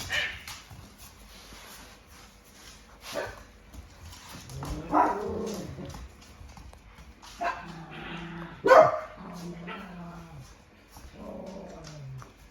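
Dog whining in drawn-out cries, one falling in pitch near the end, with a few short sharp barks; the loudest bark comes near the nine-second mark.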